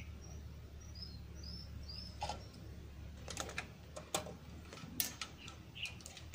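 Light clicks and taps of multimeter test probes against transistor leads and metal in an amplifier's output section, scattered through the second half, while the output transistors are checked for shorts. Faint bird chirps in the first couple of seconds, over a low steady hum.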